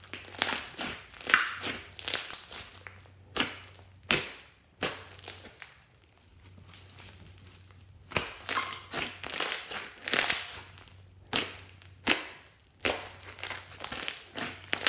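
Hands squeezing and kneading a large mass of thick slime studded with small foam beads: irregular wet crackling and squelching with sharp pops as trapped air bubbles burst, easing off for a couple of seconds in the middle.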